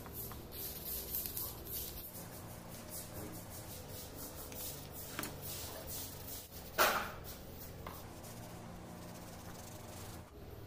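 Toothbrush bristles scrubbing a reddish paste onto a leather sheath: a run of short scratchy brush strokes, quickest in the first couple of seconds, with one louder scrape about seven seconds in.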